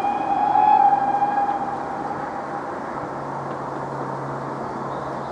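Steam locomotive whistle sounding one long blast of about two seconds at a single steady pitch, loudest about a second in, over a steady low rumble.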